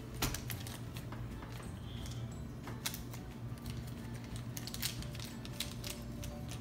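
Small pink-handled scissors snipping and clicking through stiff yellow plastic packaging: a series of irregular sharp snips, the loudest just after the start, near the middle and a little later.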